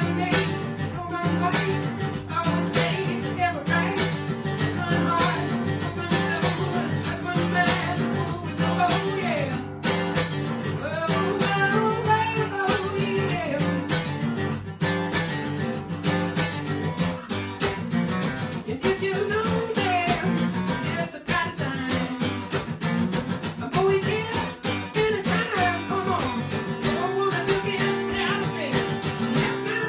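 Solo cutaway acoustic-electric guitar playing a song, with a man's voice singing over it.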